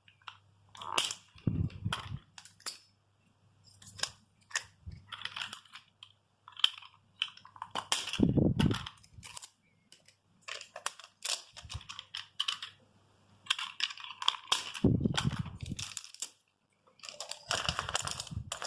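Unpacking sounds: irregular clicks and snaps as zip ties holding ratchet spanners in their packaging are cut with a knife, with packaging rustling and a few heavier knocks.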